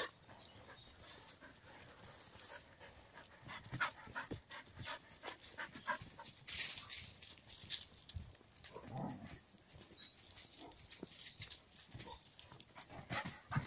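Dogs moving along a leaf-strewn woodland path: quiet footfalls, paw steps and rustles, with a short dog vocal sound about nine seconds in.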